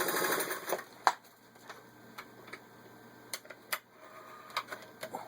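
Vintage Singer 503A sewing machine running fast through six layers of denim, stopping under a second in. After it, a sharp click and a series of scattered light clicks and knocks.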